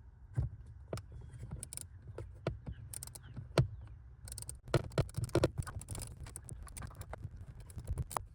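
Hand ratchet and 7 mm socket clicking and scraping in irregular short runs while working loose a hard-to-reach bolt on an HVAC blend-door actuator, with one sharp click standing out about three and a half seconds in.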